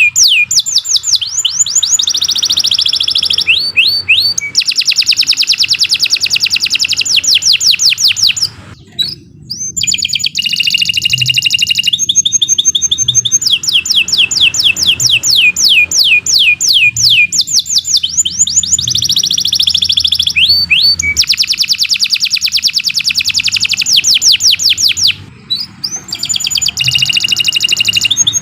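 Domestic canary singing a long, nearly unbroken song: fast trills of repeated downward-sweeping high notes alternating with denser rolled phrases, with two brief pauses.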